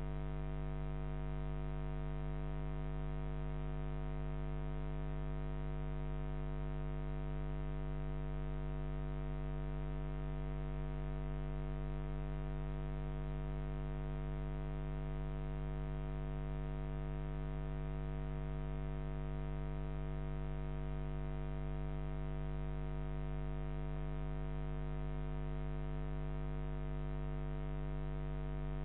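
Steady electrical mains hum in a security camera's recording: a low buzz with many evenly spaced overtones that does not change.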